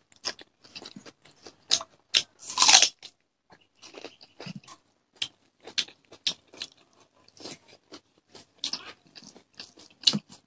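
People chewing and crunching food close to the microphone: irregular wet mouth clicks and crunches, with one longer, louder crunch about two and a half seconds in.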